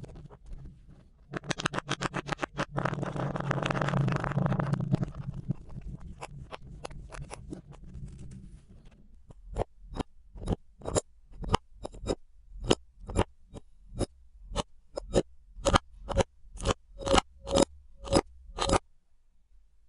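Kinetic sand being handled: a few seconds of dense crunching and scraping. Then, from about halfway through until near the end, a regular run of sharp ticks about two a second.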